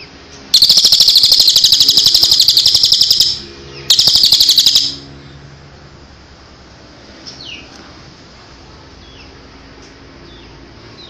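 Songbird singing a loud, rapid, buzzing trill for about three seconds, then a second shorter trill after a brief pause, followed by a few faint short chirps.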